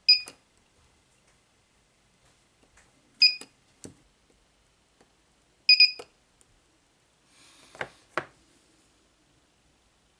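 Portable 18650 battery spot welder firing as its pen probes are pressed onto a metal tab on a cell, welding the tab to the terminal. There are four short high beeps, each with a sharp snap, the last two close together. Near the end there is some rustling and two knocks of handling.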